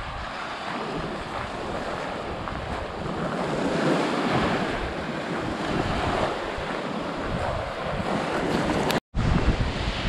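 Small waves of the Sea of Azov breaking and washing up a shelly sand beach, with wind buffeting the microphone. The sound cuts out for an instant about nine seconds in, and the low wind rumble is heavier afterwards.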